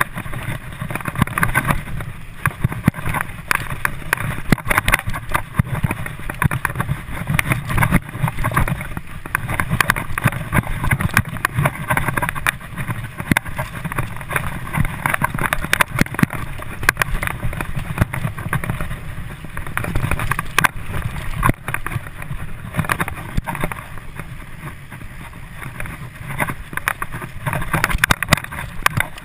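Mountain bike ridden fast over dirt singletrack: a steady rumble of tyres and wind on the microphone, with constant small rattles and knocks as the bike runs over bumps.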